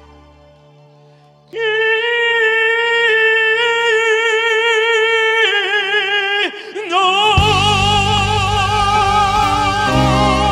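A tenor singing in an operatic style. After a quiet moment he holds a long high note with wide vibrato, then moves to another held note. About seven seconds in, the full band comes in loudly beneath him with bass and drums.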